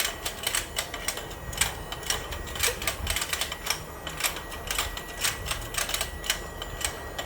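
Battery-powered toy fishing game running, its rotating pond's plastic gear mechanism clicking in an irregular rattling run as the fish turn and their mouths open and close.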